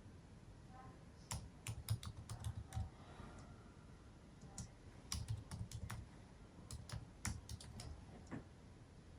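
Typing on a computer keyboard: irregular runs of quick key clicks with soft low thumps, in bursts with short pauses between.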